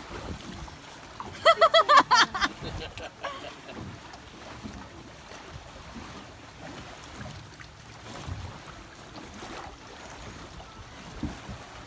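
Water sloshing and splashing around people wading in a river. About a second in comes the loudest sound, a person's high-pitched voice in five or six quick pulses.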